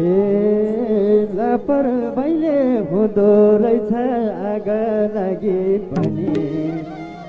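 A male singer performing a Nepali folk song: one long ornamented vocal line with wavering, bending pitch, over instrumental accompaniment.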